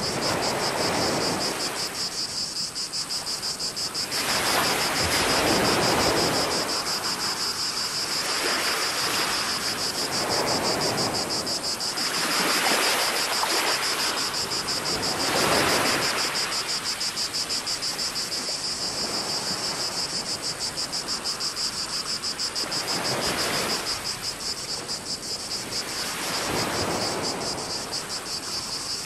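A steady, fast-pulsing chorus of cicadas, with water washing and sloshing in swells every few seconds.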